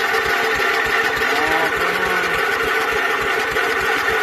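Craftsman riding mower's engine running steadily just after catching, on its first start after sitting unused for a long time.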